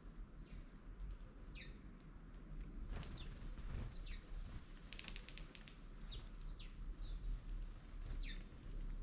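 Small garden birds calling with short, high chirps that fall quickly in pitch, repeated every second or so, with a quick run of sharp clicks about five seconds in, over a low steady rumble.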